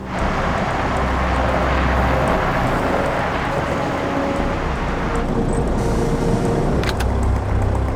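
Heavy tow truck's engine running as the truck repositions, under a loud rushing noise that thins out about five seconds in; two sharp clicks come near the end.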